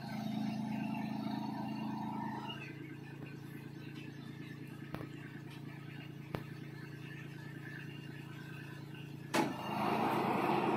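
Compact diesel tractor engine running steadily at low revs, with two light clicks midway. About nine and a half seconds in, the engine note jumps up and stays louder.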